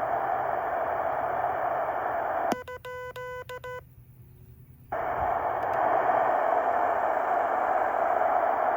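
A Heathkit HW-8 QRP transceiver's receiver hissing with band noise through its speaker, the hiss shaped into a narrow mid-pitched band. About two and a half seconds in there is a click, then about a second of rapidly keyed, buzzy Morse tones. The radio goes nearly silent for about a second before the band noise comes back.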